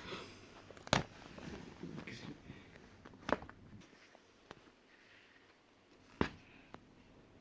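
Tablet box and packaging being handled: three sharp clicks or knocks with light rustling between them.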